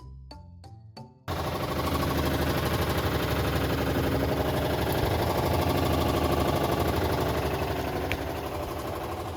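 Washing machine making an abnormal noise: a loud, fast, steady mechanical rattling and knocking that starts suddenly about a second in, after a few notes of bell-like music.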